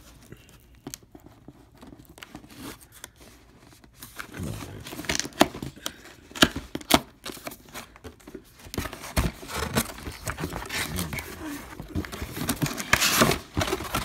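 Cardboard box being pried and torn open by hand, with sharp snaps of the flaps and paper tearing and crinkling; faint for the first few seconds, then busier and louder.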